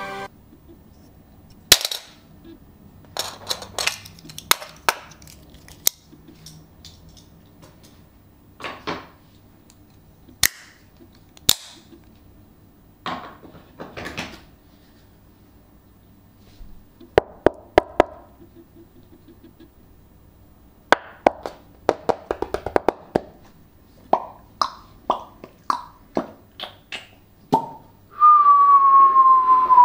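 Scattered sharp clicks and knocks at irregular intervals, some with a brief hollow ring. About two seconds before the end, a person whistles one long note that slides slowly downward.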